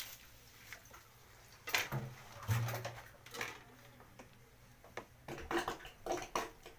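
Scattered short splashes of water and light knocks around a clogged squat toilet.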